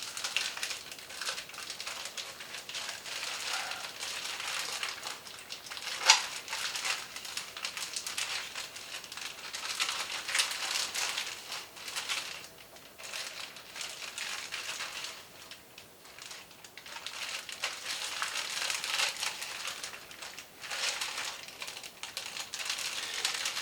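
Plastic bag crinkling and rustling in irregular bursts as steaks are handled and packed into it, with one sharp tap about six seconds in.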